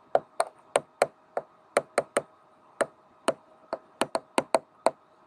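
Pen stylus tapping and clicking on a writing tablet while a word is handwritten: a quick, uneven series of about seventeen sharp taps, with a faint steady hum underneath.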